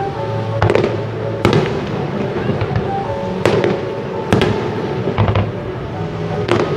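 Aerial firework shells bursting overhead: about five sharp bangs, one to two seconds apart, each with a rumbling echo, and crackle between them. Music plays underneath throughout.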